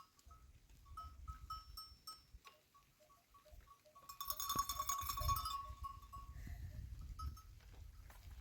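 Livestock bells on a flock of sheep tinkling irregularly as the animals move, with a denser burst of ringing about four seconds in, over a low rumble.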